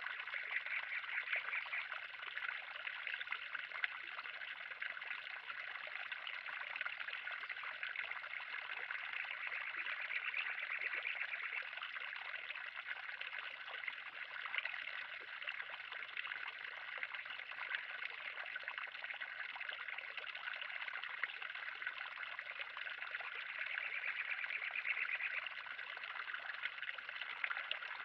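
Pond water trickling and splashing steadily, with a few slight swells.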